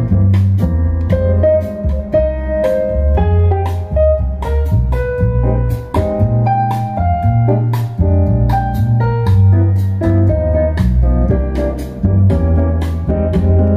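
Instrumental jazz with keyboard, a walking bass line and regular drum hits, played loud over Bluetooth through a home-built STK417-100 stereo amplifier and its wooden-cabinet speakers as a sound test.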